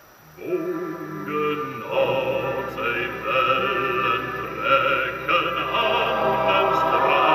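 A seaman's song playing in the car: a wavering sung line comes in about half a second in, and fuller sung music with accompaniment builds from about two seconds in.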